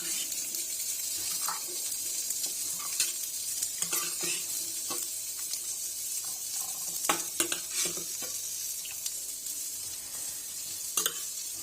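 Food sizzling steadily in hot oil, with a spoon stirring and now and then clicking against the vessel.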